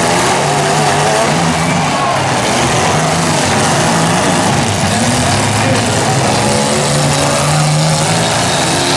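Several compact cars' engines running and revving hard as they push against each other in a demolition derby, a continuous loud mix of engine noise.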